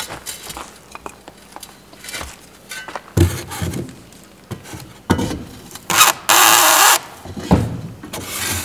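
Shovel blade scraping and knocking into hard, rocky dirt and gravel under a wall's bottom plate: a run of scrapes and knocks from about three seconds in, then a loud harsh scrape lasting under a second near the end.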